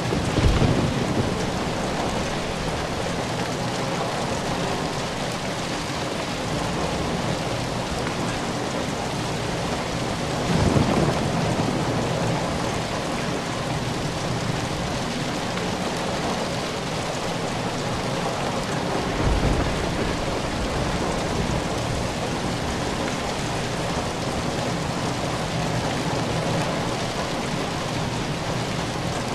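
Steady rain falling, a dense even hiss, with low thunder rumbles swelling up three times: just after the start, about eleven seconds in and about nineteen seconds in.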